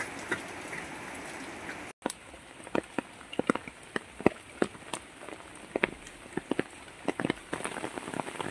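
Heavy rain falling steadily. After a break about two seconds in, it continues more quietly, with many irregular sharp taps of drops striking close by.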